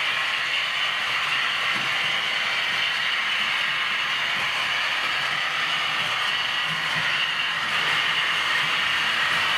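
Model V200 diesel locomotive running on a model railway, giving a steady whirring of motor and wheels on the track.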